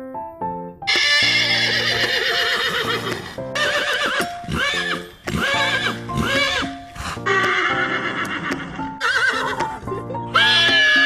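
Horse neighing: a run of loud, quavering whinnies, starting about a second in, with three shorter arched calls in the middle, over background music.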